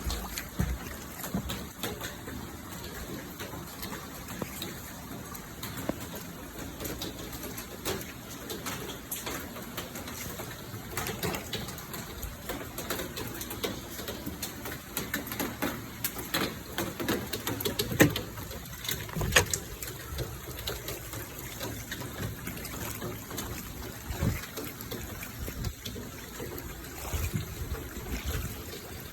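Heavy rain falling and water running over flooded ground, a steady wash with many sharp drip ticks.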